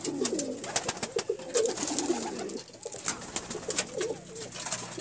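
A loft of domestic pigeons cooing, several birds at once, the cooing strongest in the first half, with wingbeats and scattered sharp clicks.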